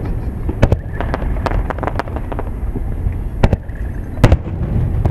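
Aerial firework shells bursting in quick succession: a string of sharp bangs and crackles over a continuous low rumble, the loudest reports about three and a half and four and a quarter seconds in.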